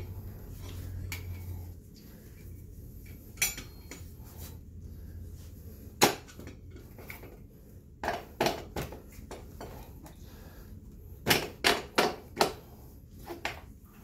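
Scattered sharp metal clinks and knocks from handling the Honda Ape 100's front brake caliper and its fittings by hand, with a quick run of four clinks a little after the middle.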